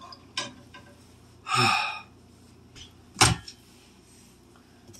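Kitchen cupboard and cookware handling, as a frying pan is fetched: a faint click, a brief rattling clatter about a second and a half in, then one sharp knock just after three seconds, the loudest sound.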